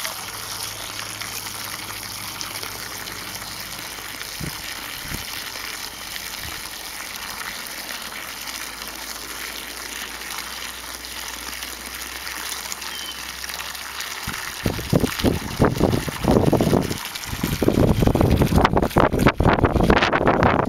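A garden hose's stream splashing into the water at a drinking manatee's snout: a steady, splashing hiss. About two-thirds of the way through, a louder, irregular rumbling starts and comes and goes.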